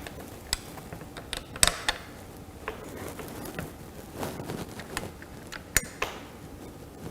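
Scattered light clicks and knocks of metal parts being handled while fitting a bicycle's handlebar into the stem clamp and placing its bolts, with two sharper clicks, one a second and a half in and one near the end.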